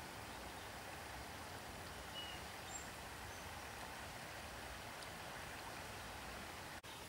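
Quiet forest ambience: a steady, even hiss with a few brief, faint high bird chirps between about two and three and a half seconds in. The sound cuts out for an instant near the end.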